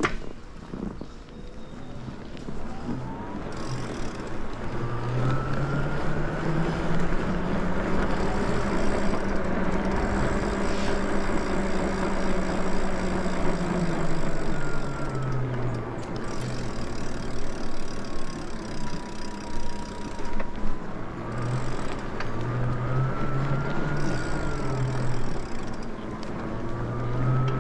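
Electric motor of a Lyric Graffiti e-bike whining while riding, its pitch rising over the first few seconds as the bike picks up speed, falling again around the middle as it slows, then rising once more. A steady rush of wind and tyre noise runs beneath it.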